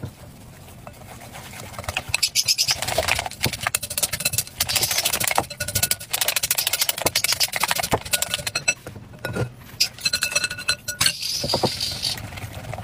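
Batter being whisked by hand in a glass mixing bowl: fast, irregular clinking and scraping of the whisk against the glass, starting about two seconds in.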